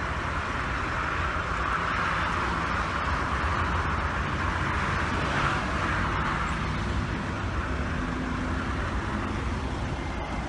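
Steady highway traffic noise: vehicle engines running, with an even hiss over a low rumble.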